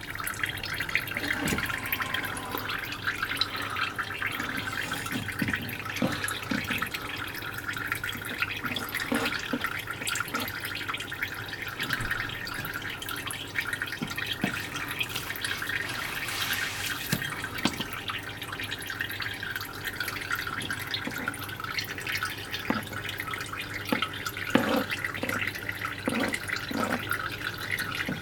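Water dripping and trickling without a break, with scattered small clicks and wet knocks from a knife and hands working on a wet cutting board.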